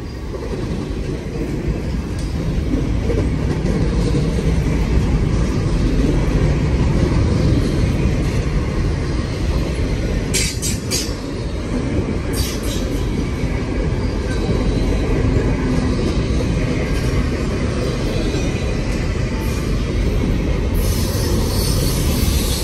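Long CN intermodal freight train rolling past close by: a loud, steady rumble of steel wheels on the rails. Brief high-pitched squeals come about ten and twelve seconds in.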